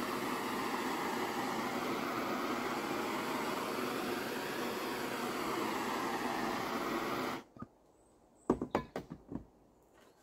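MAPP gas blowtorch burning with a steady roar as it heats a stiff drip-rail strip to soften it. It cuts off suddenly about seven seconds in, and a few sharp knocks follow.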